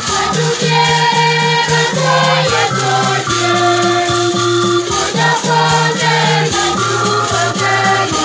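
Gospel choir song: voices singing over an electronic keyboard played through a loudspeaker, with a hand-held metal shaker rattling in rhythm. The notes are held and step from one pitch to the next.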